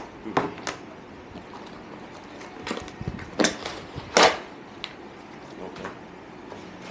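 Parcel packaging being opened and handled: several short rustles, the loudest about four seconds in.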